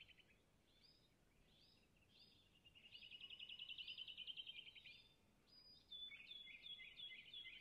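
Faint birdsong: rapid trills and short rising whistles from several birds, swelling about three seconds in and again near the end.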